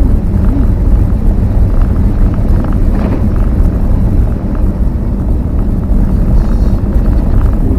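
Van driving: a loud, steady rumble of engine and road noise, with a short knock about three seconds in.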